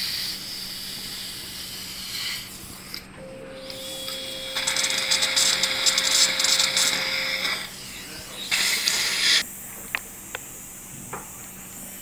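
Dental implant surgical handpiece turning the F3.5 × 8.5 mm OneGuide drill, a steady whine that starts about three seconds in and stops around seven and a half seconds. Loud hissing runs under the whine for its last few seconds, and a second short burst of hissing comes about a second later.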